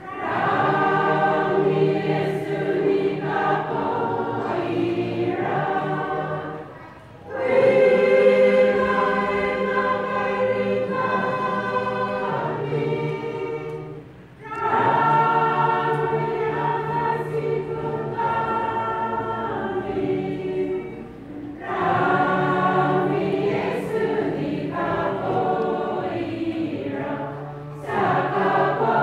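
A large group of mostly women singing a hymn together as a choir. They sing in long phrases of about seven seconds, with a brief breath between each.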